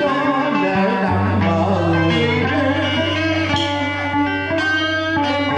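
Live amplified southern Vietnamese đờn ca tài tử music. A moon lute (đàn kìm) and an electric guitar pluck melodic lines over held low bass notes, while a man sings into a microphone.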